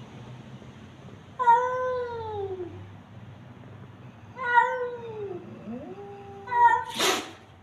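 Cat yowling in a threat standoff between cats: three or four long, wavering calls that slide down or up in pitch, then a short, sharp hiss near the end.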